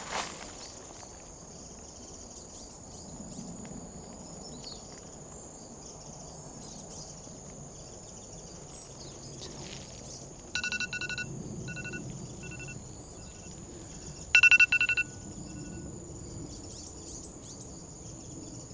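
Insects trilling steadily at a high pitch over a low outdoor rumble. About ten seconds in, and louder again near fifteen seconds, a buzzy chirping sound repeats several times and trails off in shorter chirps.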